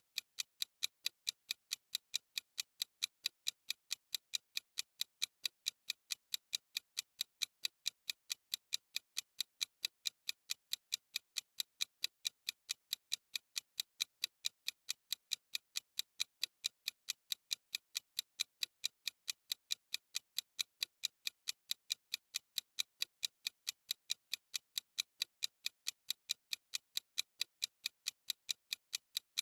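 Clock ticking sound effect marking the countdown: steady, evenly spaced sharp ticks.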